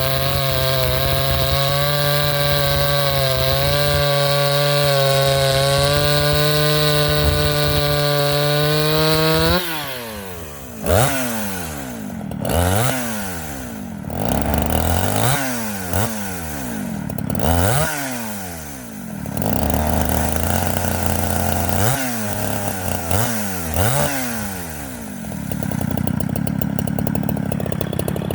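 Two-stroke chainsaw held at full throttle under load in a cut, its note steady and then climbing as it comes free about nine seconds in. After that the throttle is blipped again and again, the engine revving up and falling back every second or two.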